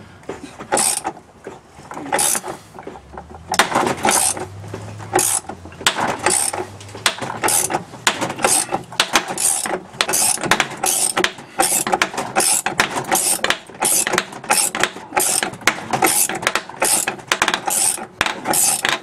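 Ratchet wrench clicking in repeated strokes, about two a second, as it turns the nut of a bearing puller to draw a tub bearing out of a washing machine.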